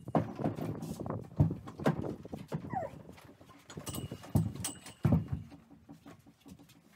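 Irregular knocks and thumps of a horse being saddled in a trailer stall: a dressage saddle set onto the pad and the girth handled, with the horse's hooves shifting on the floor. A brief falling squeak near the middle.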